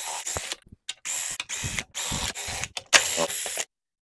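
Cordless impact driver spinning oil-pan bolts out of a Ford 4.6L V8 block, in about six or seven short bursts. The longest and loudest burst comes about three seconds in.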